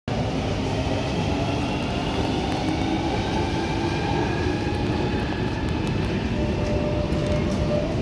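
Jubilee line train (London Underground 1996 Stock) pulling out of the platform behind the screen doors: a steady rumble with a faint whine drifting in pitch, echoing in the underground station.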